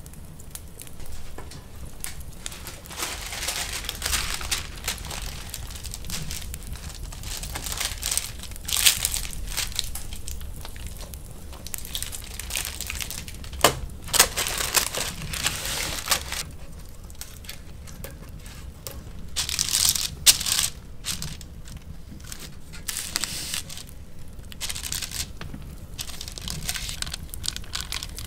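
Baking paper crinkling and rustling in irregular bursts as it is handled and folded, with one sharp click partway through. Near the end, softer rubbing as a block of butter is smeared around a metal cake pan.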